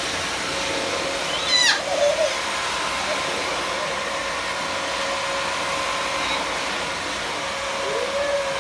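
Household vacuum cleaner running steadily with a constant hum. A baby's excited squeal sweeps down from very high in pitch about a second and a half in, and a short babble follows near the end.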